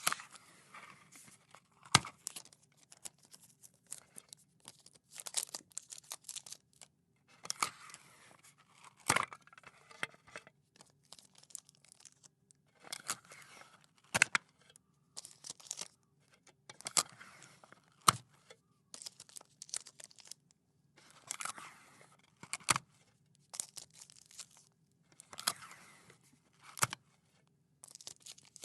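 Adhesive tape pulled off the roll with a rasping peel, then snapped off against a dispenser's cutting edge with a sharp click, over and over, about ten times.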